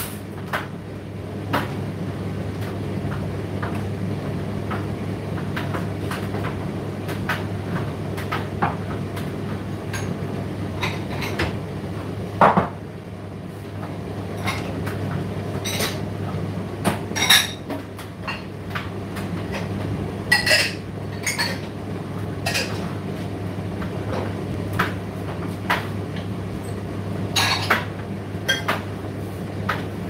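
Indesit IDC8T3 condenser tumble dryer running mid-cycle: a steady motor-and-fan hum with irregular clinks and knocks as the load tumbles in the drum.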